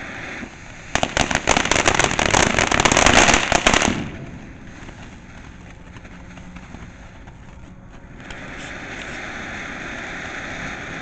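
Ground fountain firework spraying sparks: a dense, rapid crackling starts about a second in and lasts about three seconds, then dies down to a softer steady hiss.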